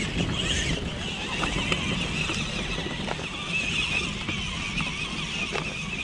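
Electric 1/5-scale Redcat Clawback RC rock crawler driving slowly over loose dirt, its motor and drivetrain whining steadily, with a few faint clicks.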